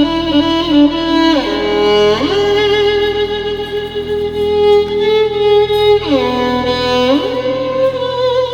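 Music track with a lead instrument holding long notes, twice sliding down in pitch and back up.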